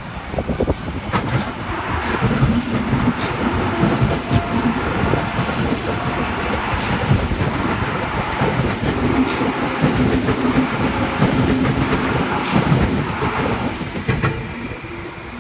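H set (Oscar) double-deck electric train passing slowly: rolling noise with a steady low hum and occasional clicks of wheels over rail joints, easing off near the end as the last cars go by.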